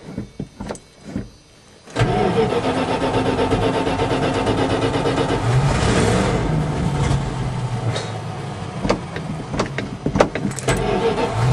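1979 Dodge pickup's carbureted 318 V8 starting after a few light knocks, catching about two seconds in and then running, with its pitch rising and falling around the middle. It is a cold start on the choke.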